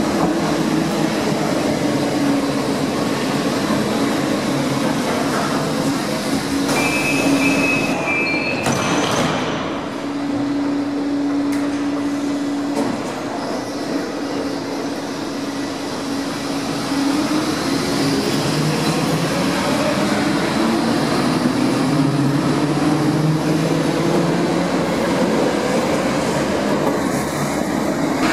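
Munich U-Bahn trains of the older A-series stock running through an underground station: a steady hum from a train at the platform, a brief high squeal about seven seconds in, and a motor whine rising in pitch as a train pulls away. Another train comes in near the end.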